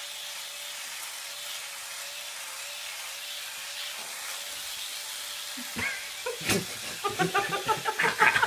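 Electric epilator running against the chest, a steady motor whine with a slight waver. About six seconds in, short vocal sounds, then a fit of laughter.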